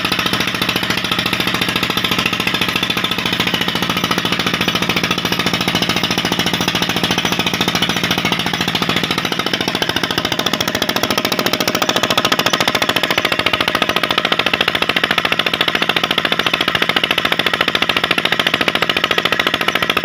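Petter diesel engine running steadily at speed, driving a tubewell pump through a flat belt, with a rapid, even knocking beat.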